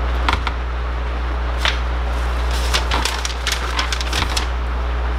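Scattered light clicks and taps of hands handling a sewing-machine needle and needle clamp while the needle is fitted, over a steady low hum.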